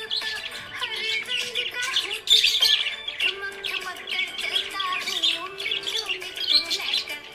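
Budgerigar chirping and warbling: a continuous stream of short, rapid high chirps and trills.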